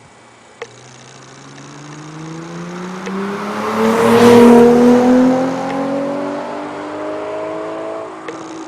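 Nissan VQ35HR 3.5-litre V6 breathing through an Amuse titanium exhaust muffler, accelerating, its exhaust note rising steadily in pitch. It grows loud and is loudest about four to five seconds in. There are a couple of short clicks near the start and the end.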